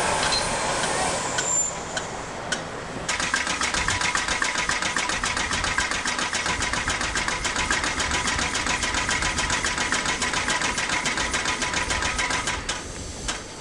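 A fast, even mechanical clatter with a steady whine under it, starting about three seconds in and dropping away near the end.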